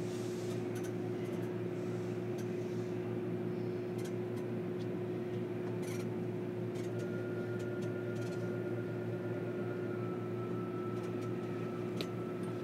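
Inside a JR Kyushu 305 series EMU car standing still: the onboard equipment and air conditioning give a steady hum with a constant mid-pitched tone, with a few faint clicks and a faint higher tone coming in about halfway through.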